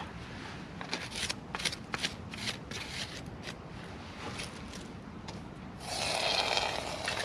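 Scratchy rustling and short clicks of handling over a campfire, then a louder rasping scrape near the end as a tin can is lifted out of the ash.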